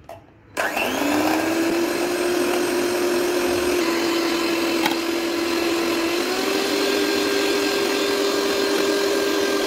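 Electric hand mixer whipping cream in a steel bowl. The motor starts about half a second in, whines up to speed and runs steadily, and its pitch steps up slightly about six seconds in.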